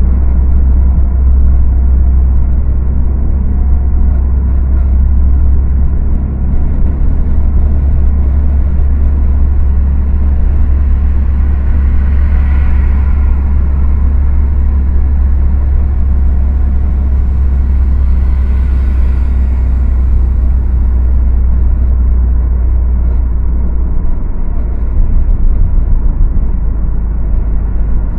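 Steady low rumble and road noise of a car driving at speed. Two brief swells of louder hiss come a little before and after halfway through, and the rumble turns unsteady near the end.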